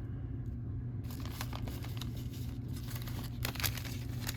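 Crinkling and tearing of a foil trading-card pack wrapper being opened by hand, as a run of crackles that starts about a second in and is loudest near the end.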